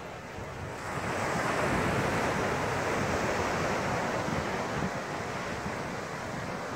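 Ocean surf rushing on the beach below, swelling about a second in and easing off after about five seconds, with wind on the microphone.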